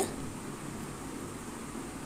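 Steady low hiss of background noise, even throughout with no distinct knocks or clicks.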